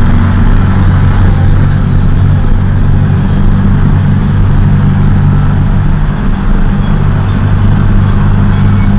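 VW Beetle's air-cooled flat-four engine running steadily at cruising speed, heard from on board the car.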